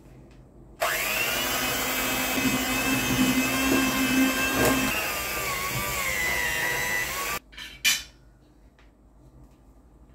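Electric hand mixer running, its beaters churning minced beef in a steel bowl. It starts about a second in, its whine dips slightly in pitch near the end, and it switches off after about six and a half seconds, followed by a short knock.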